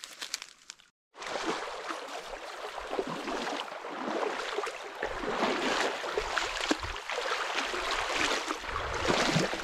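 Faint rustling, then a brief cut to silence about a second in, followed by the steady rush of a shallow river running over a rocky riffle. A low rumble joins it about halfway through.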